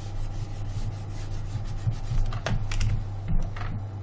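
Computer keyboard keys clicking a few times, the sharpest clicks in the second half, over a steady low hum.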